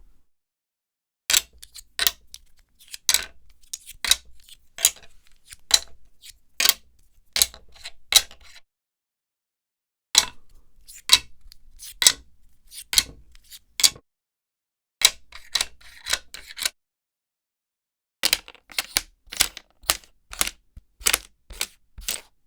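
Plastic rummy tiles being sorted on a wooden board: sharp clicks and clacks as tiles are set down and pushed together. They come in four runs with short silent pauses between, the clicks closest together in the last run.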